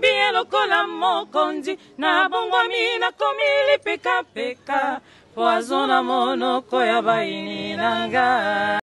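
Congolese gospel song sung by a small group of voices in harmony, with strong vibrato, in phrases broken by short pauses over a steady low accompanying note.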